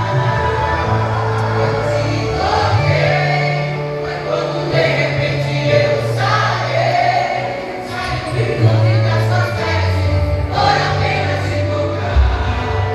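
Christian worship music: a vocal group singing in choir-like voices over an accompaniment with a sustained bass line that moves from note to note.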